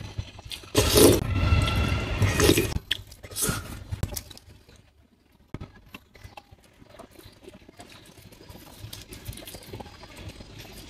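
Close-miked eating: a loud burst of mouth noise about a second in that lasts nearly two seconds, a shorter one a second later, then quiet chewing with small scattered clicks.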